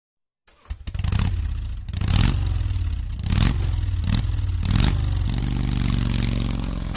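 Motorcycle engine revved in sharp blips about once a second, then held at a steady pitch from about five seconds in. It is a recorded sound effect that opens a heavy metal track.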